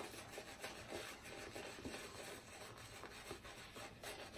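Faint scratchy rubbing of a shaving brush's bristles being worked against soap and lather.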